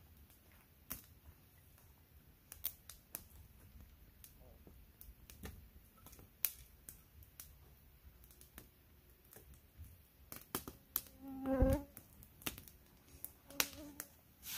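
Campfire crackling, with scattered sharp snaps and pops at irregular intervals. A short, louder sound with a pitch to it comes about three seconds before the end.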